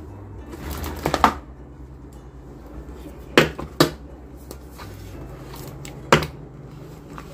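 Cardboard puzzle tubes being set down and handled on a stone countertop: a quick cluster of sharp knocks about a second in, two more knocks in the middle and one near the end, over a steady low hum.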